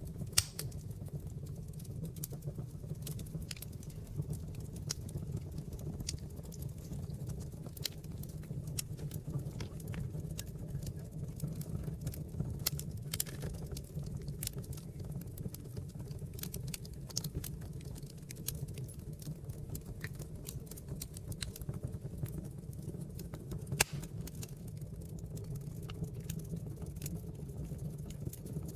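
Wood fire burning in a fireplace: a steady low rumble of flames with irregular crackles and small pops of burning logs, two sharper pops about half a second in and near the end.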